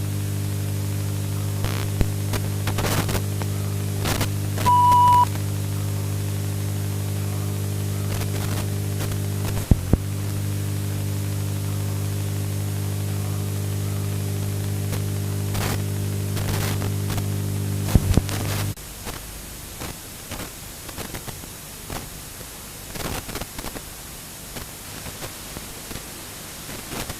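Low, steady buzzing drone over static hiss, part of a mock emergency alert broadcast, with a short high beep about five seconds in. The drone cuts off abruptly about two-thirds of the way through, leaving quieter static with scattered clicks.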